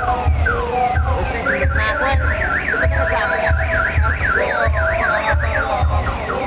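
An electronic alarm siren cycling through its tones: falling whoops, then a fast up-and-down warble for about four seconds from about a second and a half in, then quick falling chirps near the end. Under it runs a regular low thumping beat, a little under twice a second.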